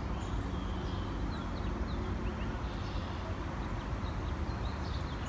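Outdoor ambience: a steady low hum with faint, short bird chirps scattered through it.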